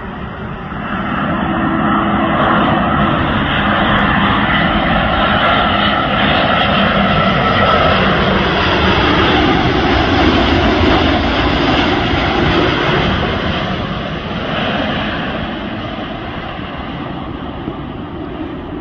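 Jet engines of a Boeing 787-8 Dreamliner on landing approach, passing low overhead: a rumble with a steady whine that swells about a second in, stays loud, then slowly fades near the end.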